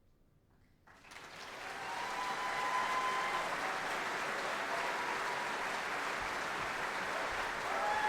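Audience applause in a large hall: it breaks out about a second in and builds quickly to a steady, sustained level.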